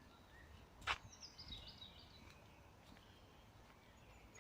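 Faint birdsong: short high chirps sliding downward, with a single sharp click about a second in.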